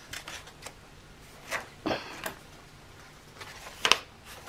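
Paper and card being handled on a tabletop: a few short rustles and taps, the sharpest about four seconds in.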